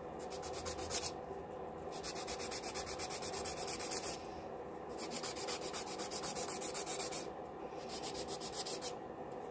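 Hand-held nail file rubbing back and forth over an acrylic nail in quick strokes, smoothing and buffing its surface after shaping. The strokes come in runs broken by three short pauses.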